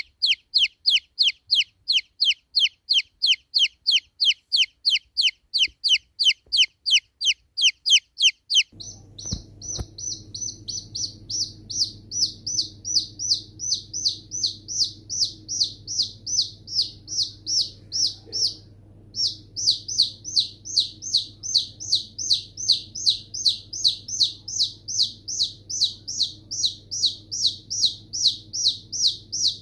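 Baby chicks peeping: a long, regular run of loud, high, downward-sliding peeps, about four a second. About nine seconds in, a steady low hum comes in under them and the peeps carry on, with a brief pause a little past the middle.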